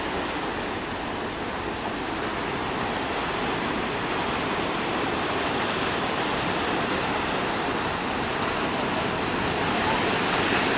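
Surf at a river mouth: a steady rush of waves breaking and washing, growing a little louder near the end.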